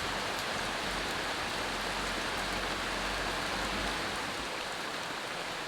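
Steady rainfall: an even hiss of many drops.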